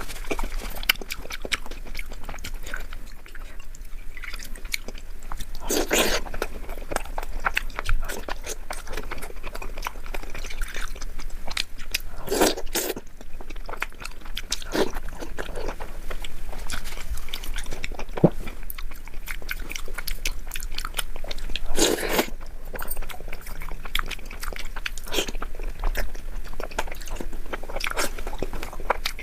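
Close-miked eating sounds: chewing of Indian sweets with many small wet mouth clicks, and a few louder ones scattered through.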